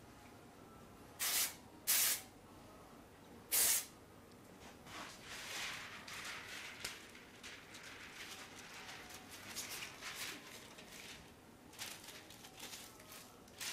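Aerosol spray adhesive can sprayed in three short hissing bursts, the last about two seconds after the first two. After that, thin plastic release film crinkles and rustles irregularly as it is handled and stretched.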